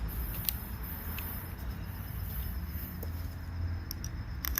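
A few light clicks and handling sounds, as a drill bit is fitted and the keyless chuck tightened, over a steady low outdoor rumble.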